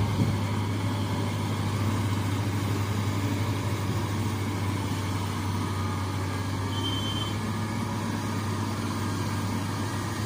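Hino truck's diesel engine pulling steadily up a climb, a constant low drone that does not rise or fall.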